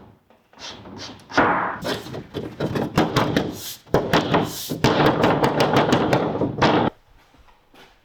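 Wooden cabinet being worked by hand: wood knocking on wood, then several seconds of continuous scraping and rattling as a part is slid and moved. It stops suddenly near the end.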